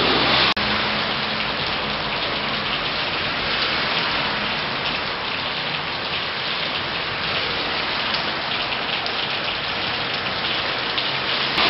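Steady, dense patter of water dripping and splashing onto a flooded floor, sounding like heavy rain: rainwater leaking in through the building's roof.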